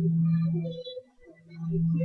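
Background music: a deep, held bass note repeating about every second and a half, with faint higher notes over it.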